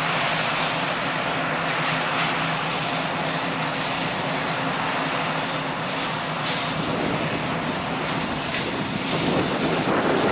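GE C44-9W diesel locomotive running with a steady engine drone as it leads a hopper train toward the listener, with rail and wheel noise. Wind buffets the microphone near the end.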